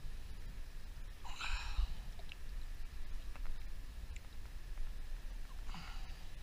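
Two breathy exhales, like sighs, about four seconds apart, over a low steady rumble.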